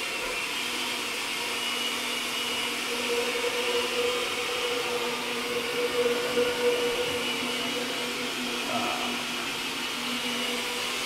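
A steady mechanical hum from a running motor, with a faint high whine over it.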